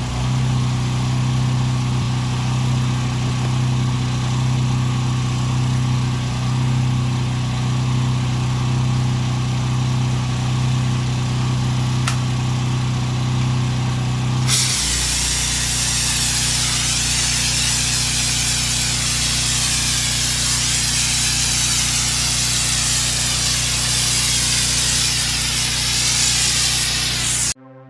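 Gas-engine pressure washer running steadily. About halfway through, high-pressure water starts spraying with a loud hiss, and the engine note drops as it takes the load. The sound cuts off suddenly shortly before the end.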